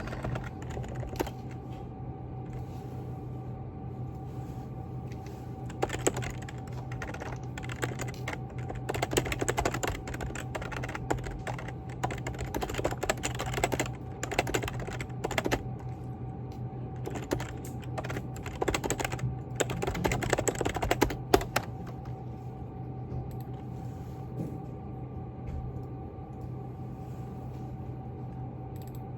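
Typing on a computer keyboard: irregular runs of keystroke clicks, busiest through the middle and sparser near the start and end, over a steady low hum.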